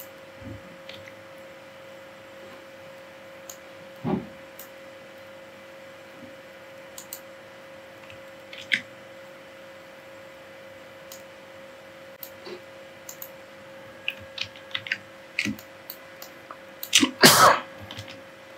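Scattered computer mouse clicks over a steady faint hum. Near the end comes one short, louder burst of noise.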